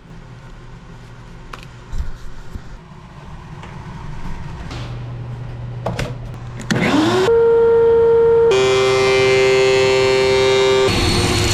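Woodworking power tool spinning up about two-thirds of the way in and running at a steady high pitch. Near the end its pitch drops and a hiss joins in, as when the blade or cutter takes wood. A few knocks come before it starts.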